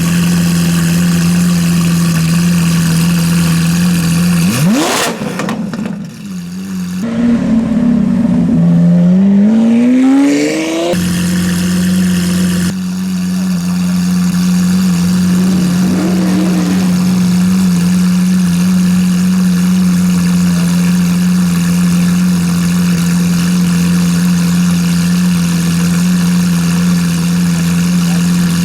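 Lamborghini Aventador LP700-4's V12 engine idling steadily. It gives a quick sharp rev about four and a half seconds in, a longer rising rev between about eight and eleven seconds, and a small blip of the throttle near sixteen seconds, then settles back to idle.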